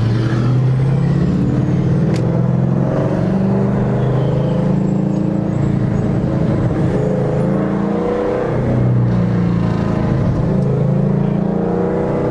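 Supercharged 5.4-litre V8 of a 2012 Shelby GT500, breathing through long-tube headers and an off-road X-pipe, pulling the car along at light throttle. The exhaust note is steady, rising and falling a little in pitch, with no pops.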